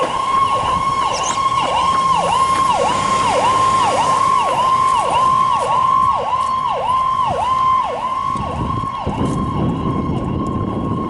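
Fire engine's siren sounding while it responds. The tone dips down in pitch and snaps back up, about twice a second. About eight seconds in it switches to a steady held tone, and a lower rumble rises beneath it.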